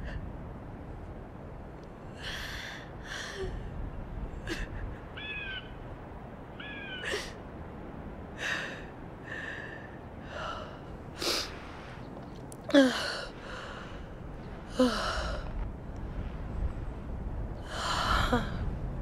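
A young woman crying: a string of sobbing, gasping breaths, some with a short voiced catch. The strongest come about two-thirds of the way through, with a longer sob near the end, over a steady low background rumble.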